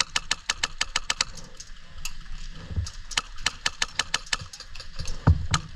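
Airsoft guns firing in rapid runs of sharp cracks, about eight shots a second: one run at the start, a second about three seconds in, then a few single shots near the end.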